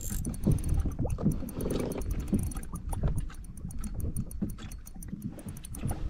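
Water and wind buffeting a kayak and its action camera, with uneven low thumps and many small sharp clicks.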